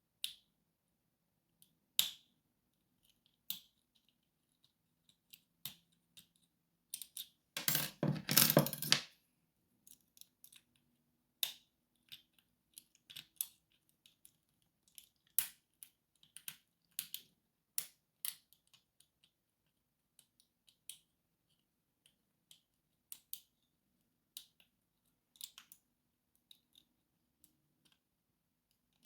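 Small metal clicks and ticks of a lock pick and tension wrench working inside a lock, coming irregularly, with one louder scraping rattle lasting about a second, about eight seconds in.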